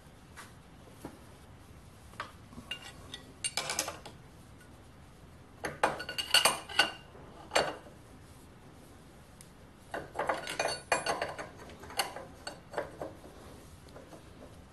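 Steel spanners clinking and scraping against the collet nut and spindle of a Schaublin 102 lathe's collet chuck as the collet is locked up. The metallic clicks come in three clusters: a short one about four seconds in, a louder one around six to eight seconds, and another from ten to thirteen seconds.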